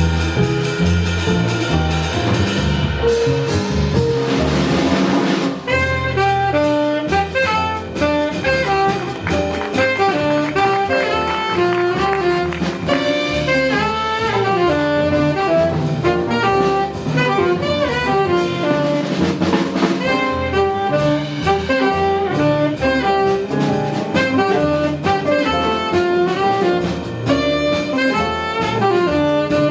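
Live jazz combo: a saxophone playing quick running lines over double bass and drum kit, with cymbal crashes about four seconds in and again near the twenty-second mark.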